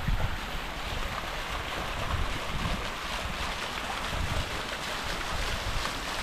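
Outdoor wind rushing past the microphone, with irregular low buffeting gusts over a steady hiss.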